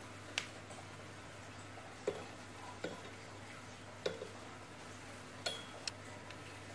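Irregular light clicks and taps of small tools and parts being handled at an electronics workbench, about seven in all, a few with a short metallic ring, over a steady low mains-type hum.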